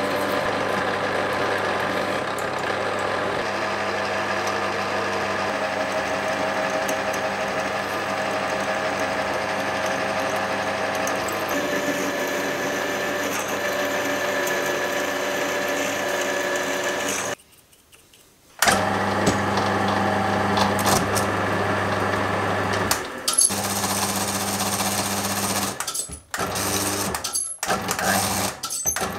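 Metal lathe running and cutting a 19 mm steel bar: facing the end, then drilling it with a twist drill fed from the tailstock, then tapping an M12 thread. The steady machine sound is broken by a brief drop-out about two-thirds of the way through and by several abrupt cuts near the end.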